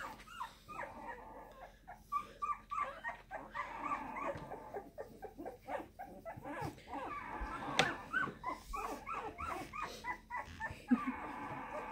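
Two-week-old puppies whimpering and squeaking in a run of short, high squeals, with one sharp click about eight seconds in.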